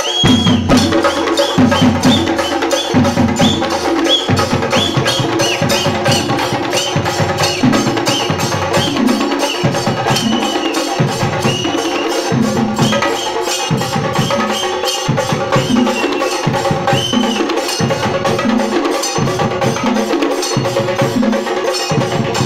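Chenda melam: a group of chenda drums beaten with sticks in a loud, fast, dense rhythm that runs steadily throughout.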